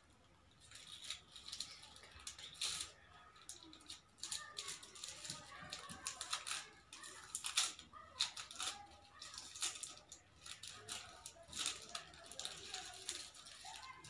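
Crepe paper and sellotape crinkling and rustling in the hands as a strip of tape is wrapped around a chopstick, in irregular short crackles.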